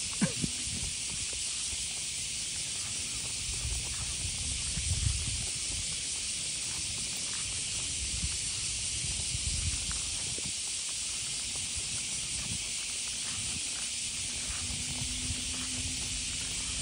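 Steady high hiss of outdoor background noise, with soft rustles and low rumbles coming and going underneath.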